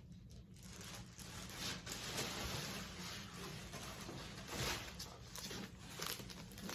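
Rustling and crinkling handling noises, with a few sharper crackles, as a leather handbag and its packing are handled and searched.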